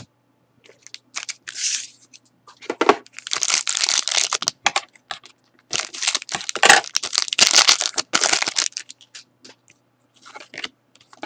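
Foil wrapper of a trading-card pack crinkling loudly in several spells as it is handled and cut open with scissors, then the cards are slid out.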